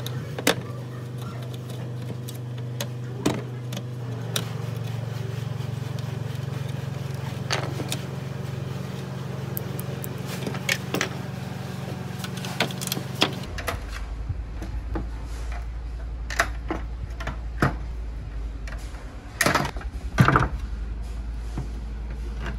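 Scattered clicks and knocks of hard fan parts being handled, with a short flurry of them near the end, over a steady low hum that shifts lower a little over halfway through.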